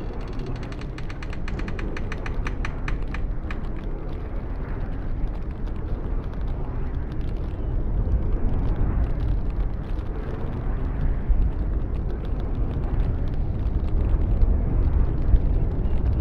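Strong wind blowing as a deep, gusty rumble that swells and eases. For the first three seconds or so, a rapid rattle of sharp clicks sounds over it before dying away.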